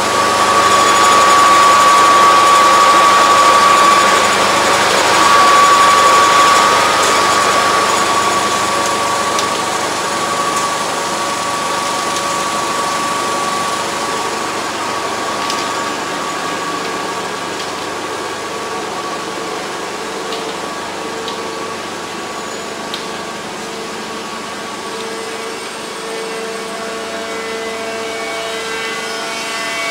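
A pipeline drilling rig and its drilling-mud cleaning plant running loudly and steadily: a constant machine whine over a noisy rumble. It eases a little after the first several seconds, and a lower steady hum comes in near the end.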